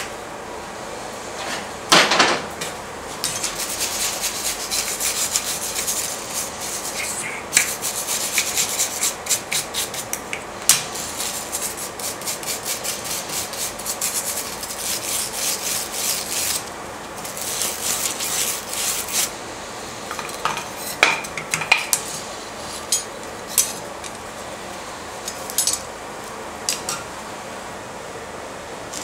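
Steel wire brush scrubbing a red-hot forged rebar disc held in tongs on the anvil, in several bouts of rapid scratchy strokes. A sharp metallic clank comes about two seconds in, and a few lighter metal clinks near the end.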